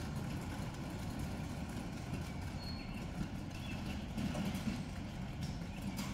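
Ride-on scale 0-8-0 locomotive and coal train pulling away on steel track: a steady low rolling rumble of the wheels with irregular clicking over the rail joints.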